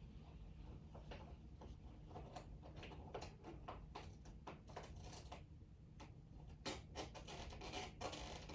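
Irregular light clicks and taps, coming thicker near the end, over a steady low hum.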